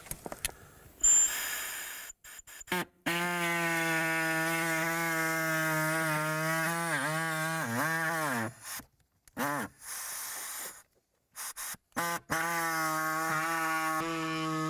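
Small cordless reciprocating saw cutting through the plastic bottom of a blower motor housing. It runs steadily in several stretches with short breaks, and its pitch sags and falls away about halfway through as the blade loads up in the plastic.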